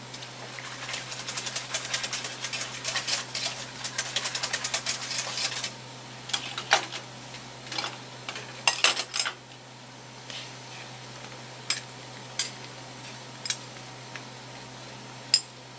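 Miso being dissolved into a pot of shrimp-head broth: rapid scraping and clicking of utensils against a strainer for about five seconds, then scattered clinks and a few single taps of a metal ladle against the metal pot.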